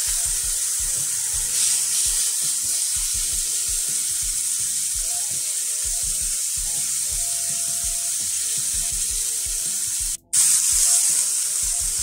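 Oxtail pieces sizzling as they brown in a hot pan: a steady high frying hiss. About ten seconds in it cuts out for a split second and comes back slightly louder.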